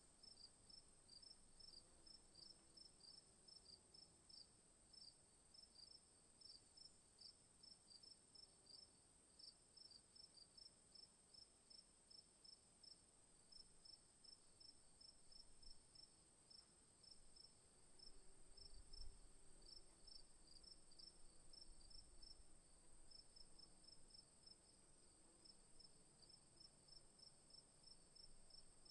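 Crickets chirping faintly: short high chirps repeating several times a second in runs, over a steady high-pitched insect trill. A soft low thump comes partway through.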